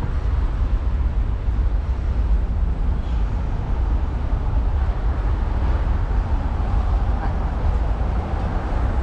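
Steady low rumble of wind buffeting the camera's microphone, mixed with the hiss of street traffic.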